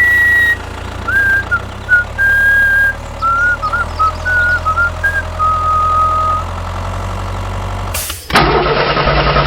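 A person whistles a short tune of gliding notes over a steady low engine hum, and the hum carries on alone once the whistling stops. About eight seconds in, a loud, rough mechanical noise cuts in abruptly.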